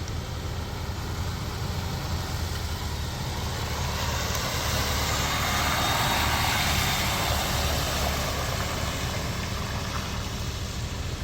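A vehicle engine idling steadily with a low rumble. A broad rushing noise swells for a few seconds in the middle and then eases off.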